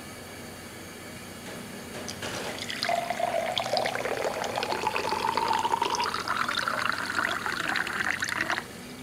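Water poured steadily into a container, filling it: the pitch of the pour rises as the container fills, and the pour stops suddenly near the end.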